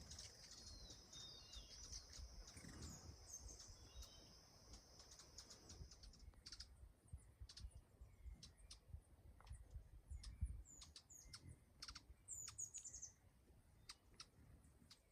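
Faint small-bird chirps and short high calls in rainforest, with a steady high-pitched whine that stops about six seconds in, then scattered sharp chirps.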